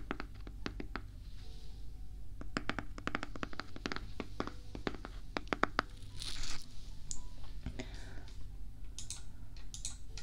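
Fingers tapping and scratching on a round plastic jar held up close to a binaural microphone: quick runs of sharp, crackly clicks with a brief hissy rub a little past the middle.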